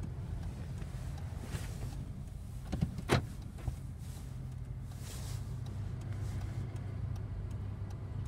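Inside a moving Hyundai car: a steady low engine and road hum, with a couple of sharp knocks about three seconds in and faint ticking near the end.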